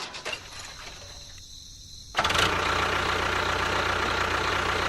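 A small engine running steadily, setting in abruptly about two seconds in after a quieter stretch.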